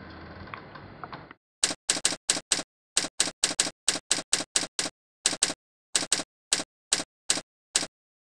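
Typewriter keystroke sound effect: about two dozen sharp key clacks in quick, uneven succession, grouped with short pauses like typed words, each letter striking against dead silence. Before the clacks, for about a second and a half, there is faint room hum that cuts off.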